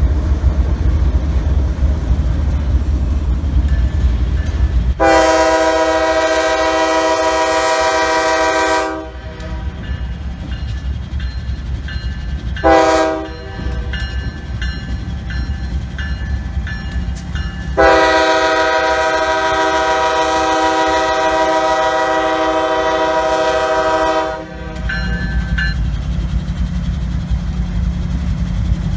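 Norfolk Southern diesel locomotive's multi-chime air horn blowing for a grade crossing: a long blast, a short blast, then a long blast held about six seconds. Low rumble of a passing train comes before the horn, and the locomotives' engines rumble near the end.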